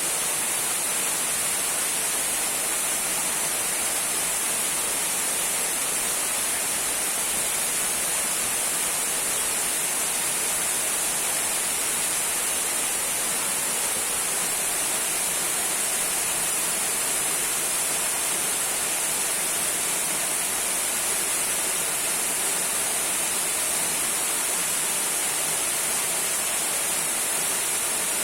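Small waterfall trickling and splashing: a steady, unbroken rush of water with a strong hiss.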